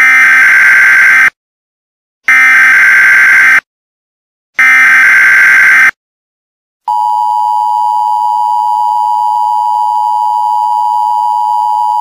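Emergency Alert System tones: three short bursts of SAME header data, about a second apart, followed by the steady two-tone EAS attention signal starting about seven seconds in. Together they open a Civil Emergency Message alert.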